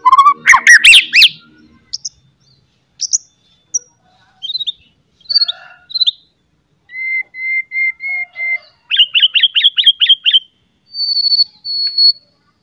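White-rumped shama (murai batu) in full, loud song. A dense burst of rich whistles opens it, followed by scattered phrases and a run of five even notes. A quick series of about ten falling notes comes next, and a high trill closes it near the end.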